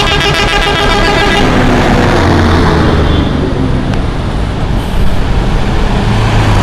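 Telolet multi-tone air horn on a Scorpion Holidays bus playing its quick warbling tune, cutting off about a second and a half in. Then the low hum of the bus engine with traffic noise.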